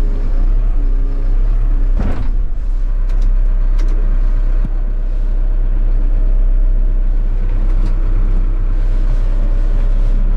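Caterpillar backhoe loader's diesel engine running steadily, heard from inside the cab, with a sharp knock about two seconds in and a few light clicks after it.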